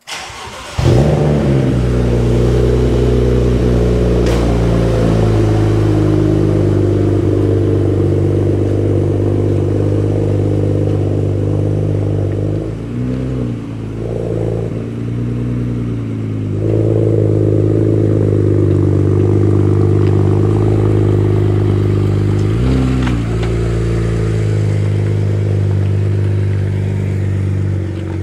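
BMW N54 twin-turbo inline-six in an E36 M3 starting up, catching about a second in, then idling steadily, with short revs near the middle and again about 23 seconds in as the car is backed out.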